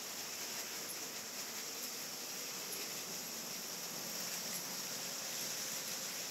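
A steady hiss with no distinct events.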